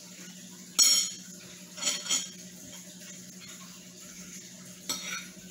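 Metal fork clinking against dishes while eating: a sharp ringing clink about a second in, two lighter ones at about two seconds, and another near the end.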